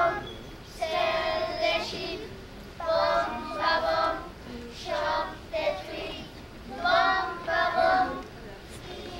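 A group of young children singing together in unison, in short repeated phrases.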